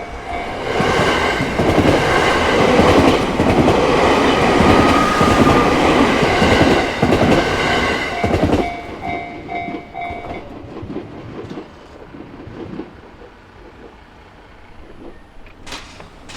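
A railway level-crossing warning bell rings in rapid repeated dings while a train passes over the crossing. The passing train's loud clatter covers the bell for about eight seconds. The bell is then heard again and stops about ten seconds in, leaving a quieter background.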